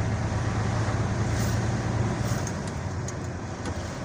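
Engine and road noise heard from inside a moving vehicle's cab: a steady low engine drone over tyre and wind hiss, easing slightly about two-thirds of the way through.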